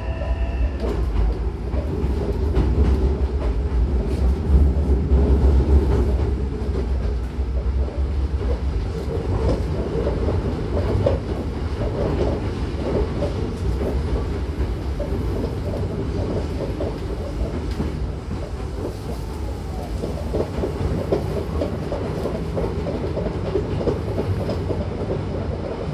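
Hankyu 9000-series electric train running, heard from inside the car: a steady rumble of wheels on rail with many short clicks, loudest a few seconds in.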